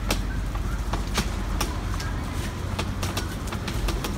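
Footsteps on a brick-paved lane, about two steps a second, over a low rumble of wind on the microphone.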